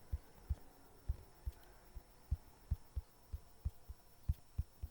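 A heartbeat sound effect: a steady run of soft, low thumps, about two or three a second.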